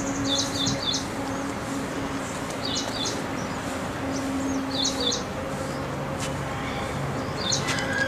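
Small birds chirping, a quick cluster of short high notes every couple of seconds, over a faint steady low hum and background noise.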